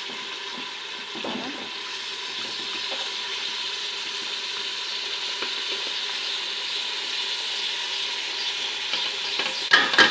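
Masala with soaked white kidney beans sizzling as it fries in a pot while a spoon stirs it. A few sharp spoon knocks and scrapes against the pot come near the end.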